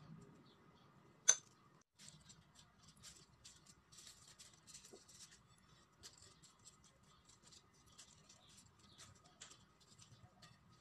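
Faint scraping and clicks of a utensil spreading sauce on a tortilla on a plate, with one sharp click about a second in. After a short break, soft crackly rustles of lettuce leaves being laid on the tortilla by gloved hands.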